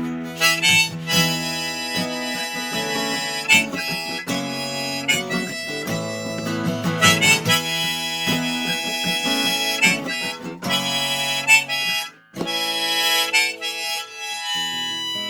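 Instrumental outro of a folk song: a harmonica playing a melody of held notes over strummed acoustic guitar chords.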